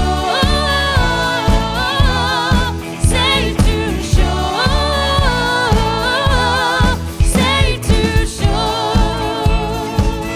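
Background music: a song with a singing voice over a band with bass and a steady beat.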